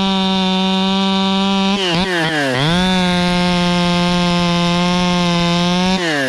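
A two-stroke chainsaw running at high revs, held steady. It drops off briefly about two seconds in, then revs back up, and drops off again near the end.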